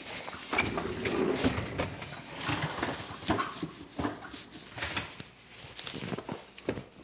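Plastic cookie dough packaging being handled and opened: irregular crinkling with clicks and taps.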